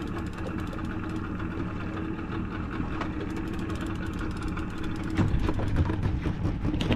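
A 40 hp outboard motor idling with a steady hum, growing louder and rougher in the low end from about five seconds in.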